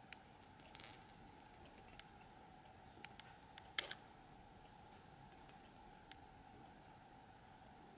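Near silence with a faint steady hum and a handful of light, sharp clicks spread through, the loudest a little under four seconds in: handling noise of fingers shifting on a wooden knife handle.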